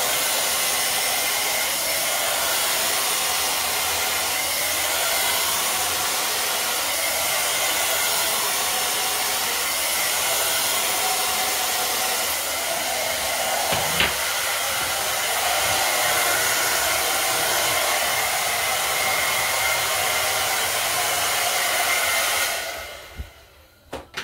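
Conair Smoothwrap hand-held blow-dryer running steadily with a constant airflow hiss as it dries hair, then switched off abruptly near the end. A single sharp click sounds about halfway through, and a couple of light knocks follow the switch-off.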